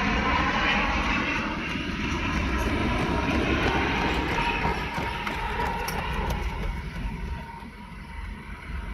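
Boeing 787-8 airliner with Rolls-Royce Trent 1000 engines passing on its landing approach: a broad jet roar and rumble with a faint steady whine, fading away over the last few seconds.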